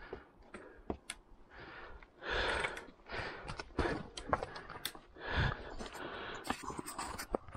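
A hiker breathing hard on a steep rocky climb, with heavy breaths coming about every second, mixed with scattered sharp clicks and knocks.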